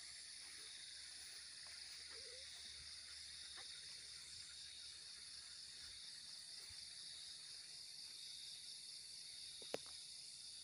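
Faint, steady chorus of insects with a high pulsing trill. One sharp click near the end.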